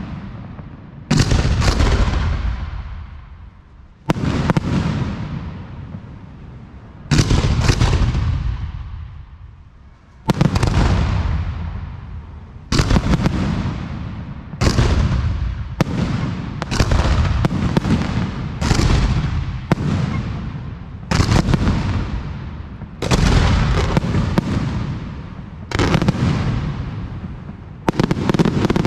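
Fireworks display: aerial shells bursting with loud bangs, each trailing off in a long fading rumble. The bursts come every two to three seconds at first, then faster, about one a second, from roughly twelve seconds in.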